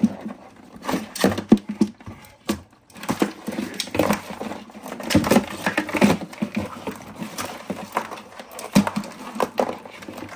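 Live blue crabs and metal kitchen tongs clattering and scraping against a hollow plastic cooler: a run of irregular knocks and clicks as the crabs are picked through.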